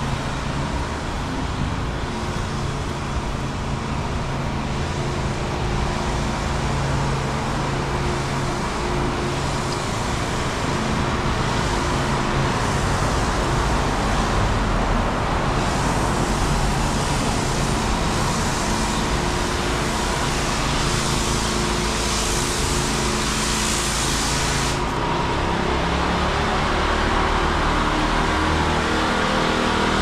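City street traffic: vehicle engines running with steady road noise. A hiss joins about halfway through and cuts off suddenly a few seconds before the end.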